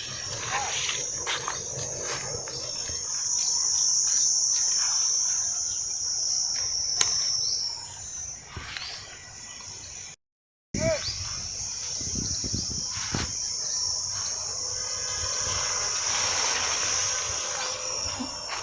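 Steady high-pitched insect chorus, crickets or similar, with scattered short calls and clicks beneath it. The sound drops out completely for about half a second a little over halfway through.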